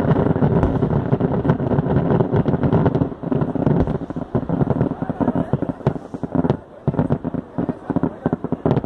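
Crackling fireworks carried by a paper hot-air balloon: a dense run of rapid pops that thins out to scattered separate cracks over the second half.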